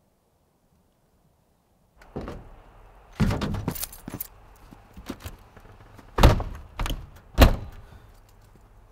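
A truck camper's entry door being opened, shut and latched: after about two seconds of near silence comes a run of clicks and knocks, with two loud thuds near the end.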